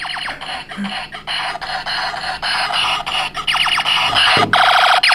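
Electronic sound effects from a toy Kamen Rider Drive Driver belt playing through its small speaker: a fast-pulsing electronic warble that breaks off briefly a few times and comes back louder near the end.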